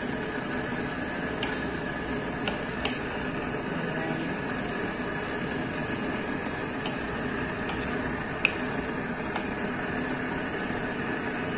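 Chicken, potatoes and carrots in tomato sauce simmering and sizzling in a nonstick wok while a wooden spatula stirs them, with a few light clicks of the spatula against the pan, the sharpest about eight seconds in.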